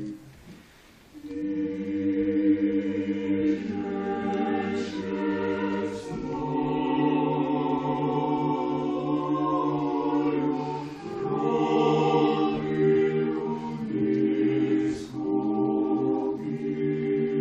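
Mixed Orthodox church choir singing a cappella in several parts. A short pause near the start gives way to singing about a second in, and the phrases are broken by brief breaks.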